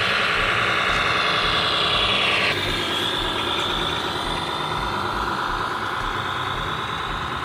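Radio-controlled scale MAN truck driving: a steady engine-like running sound with a high whine. The whine drops in pitch and the sound changes about two and a half seconds in.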